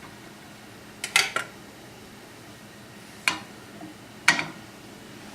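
A metal kitchen utensil clinking against cookware: a quick cluster of clinks about a second in, then single clinks about three and four seconds in.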